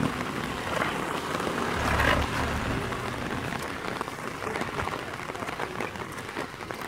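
Steady rain falling, an even hiss of drops, with a brief low rumble about two seconds in.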